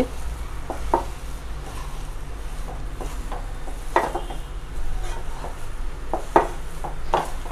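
Wooden spatula stirring and scraping cooked rava kichadi around a kadai, with scattered light knocks of the spatula against the pan.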